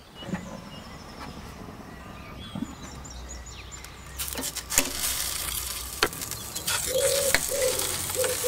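Metal tongs clinking against the wire grid of a gas grill as raw chicken breasts are set down on it, a few sharp clinks over a steady hiss from the hot grill that comes up about halfway through.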